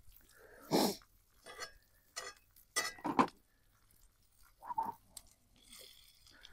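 A metal spatula clinking and scraping against a skillet of frying eggs: a few short, separate strokes, the loudest about a second in and about three seconds in.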